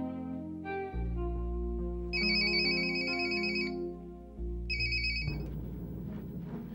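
A mobile phone rings twice with a warbling electronic trill, the second ring cut short, over background drama music.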